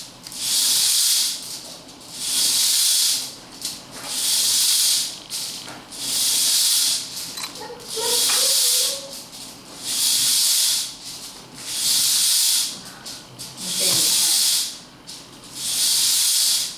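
Rhythmic high-pitched hissing swishes, each about a second long, repeating evenly about once every two seconds.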